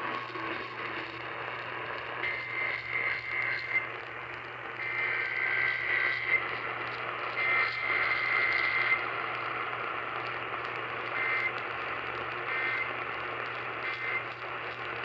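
Emergency Alert System SAME data bursts on NOAA Weather Radio, heard through steady radio static: three buzzy two-tone header bursts of about a second and a half each, then three short end-of-message bursts near the end. The bursts mark the start and end of a test alert.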